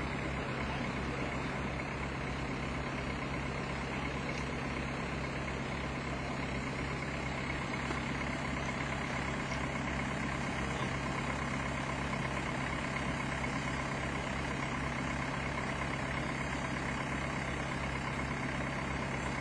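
Heavy vehicle engine idling steadily, with an even low throb.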